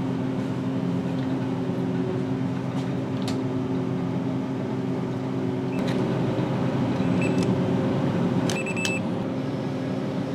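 Vending machine running with a steady hum. A few sharp clicks, then short high electronic beeps in the second half.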